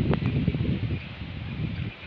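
Wind rumbling on the microphone, with water splashing and dripping as a wet cast net is hauled up out of the water by hand.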